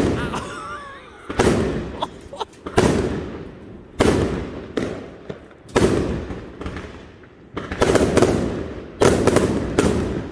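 Aerial fireworks bursting overhead: a loud bang every second or two, each trailing off in a rumbling echo. Near the end the bursts come in a quicker cluster of cracks.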